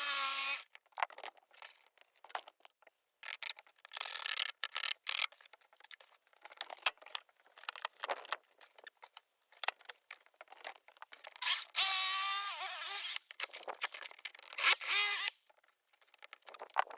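Small power tool, most likely a cordless drill, run in short bursts of about a second, three or four times. Between the bursts come scrapes and clicks of hand work.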